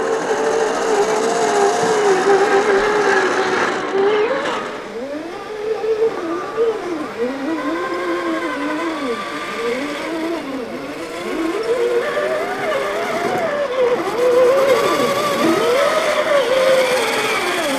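Electric motors and gear trains of 1/10-scale RC crawler trucks (an Axial SCX10 II and a Traxxas TRX-4) whining, the pitch rising and falling over and over with the throttle as they crawl over rocks.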